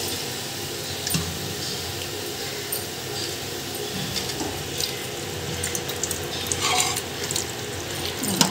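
Masala frying and sizzling in a metal kadai as boiled mutton pieces are ladled in, with a few light clinks of the steel ladle and spoon against the pan.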